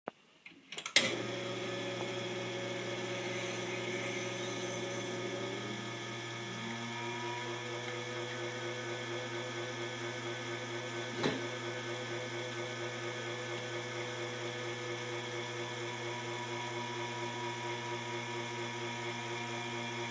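Rocket R58 espresso machine's rotary pump switching on with a click about a second in, then running with a steady hum while an espresso shot pulls. The tone changes slightly about six seconds in, and a single click sounds about eleven seconds in.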